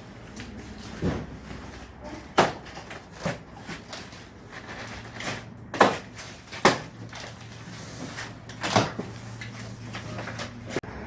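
Irregular sharp knocks and clicks, about six of them, over a steady low hum.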